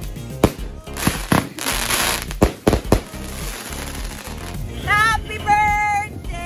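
Aerial fireworks going off: several sharp bangs with dense crackling in the first three seconds, then fading, over background music.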